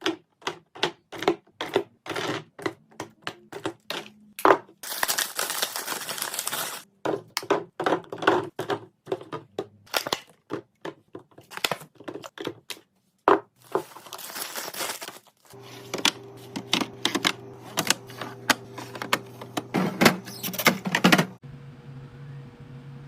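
Snack packages and plastic containers being handled and set down while restocking a fridge: a quick run of clicks and knocks, with two stretches of plastic wrappers crinkling. A low steady hum comes in about two-thirds of the way through.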